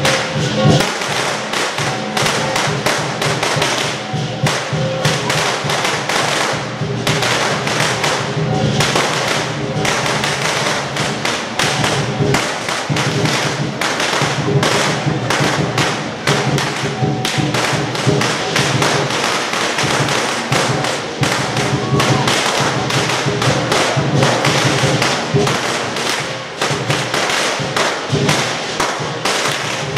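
Lion dance percussion: a Chinese drum beaten rapidly and steadily with clashing cymbals ringing over it.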